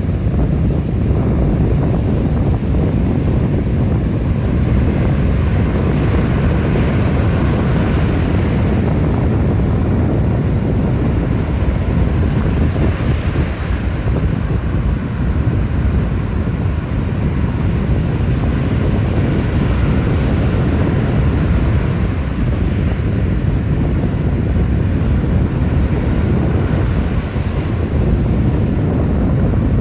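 Strong wind buffeting the microphone, a loud, steady rumbling rush with no pauses, as in storm wind from a hurricane.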